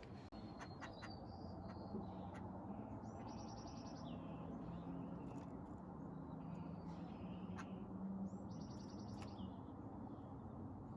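Birds calling: two harsh, rasping calls made of rapid pulses, about five seconds apart, with fainter short chirps between them, over a steady low hum.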